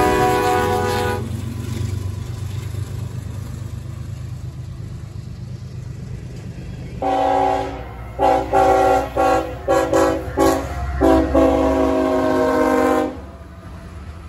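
Diesel locomotive air horn sounding a chord: one blast cuts off about a second in, then comes low train rumble. Near the middle the horn starts again with a held note, then about half a dozen short quick toots and a final long blast of about two seconds. Lower rumble of the passing train follows.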